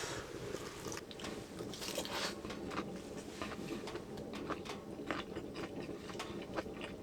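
A person chewing a mouthful of raw yellowtail wrapped in dried seaweed with white kimchi and garlic, close to the microphone: irregular crisp, crunchy bites.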